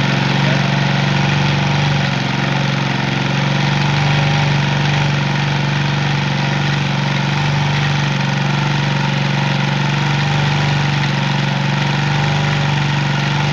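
Old Tossa motorcycle's engine idling steadily at a slightly raised throttle, running to charge its flooded lead-acid battery.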